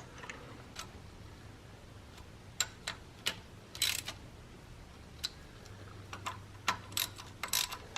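Irregular light metallic clicks and taps, about a dozen, as hand tools and engine parts are handled during reassembly of a BMW E36 engine, over a faint low steady hum.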